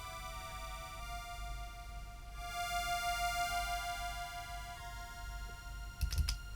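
Contrabass clarinet played through an EHX POG2 octave pedal and a Meris Enzo synth pedal, sounding as sustained, synth-like ambient tones. The tones shift pitch a couple of times and swell in the middle, with a few sharp clicks near the end.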